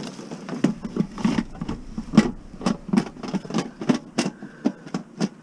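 A metal pressure cooker being shoved and wedged into a vehicle load of scrap metal: a run of knocks and clatter, about two or three a second.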